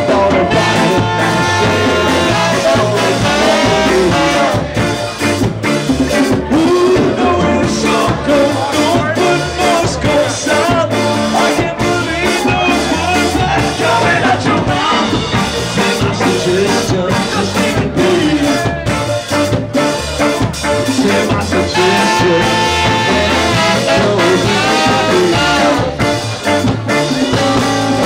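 Live band playing loud, with a singer and electric guitar over a steady beat.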